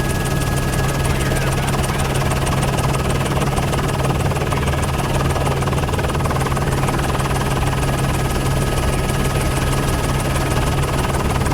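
Helicopter in flight heard from on board: a steady low drone of rotors and turbine, with a thin steady high whine over it, unchanging throughout.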